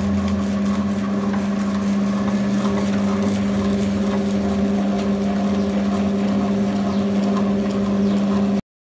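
Electric jowar roti maker running: its motor hums steadily as the platter turns under the steel roller, pressing a ball of dough into a thin roti. The hum cuts off abruptly near the end.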